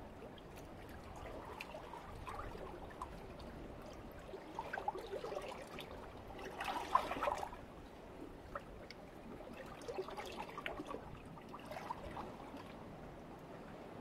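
Calm Mediterranean sea lapping and trickling among shoreline rocks, with a steady wash broken by small surges of gurgling water, the largest about halfway through.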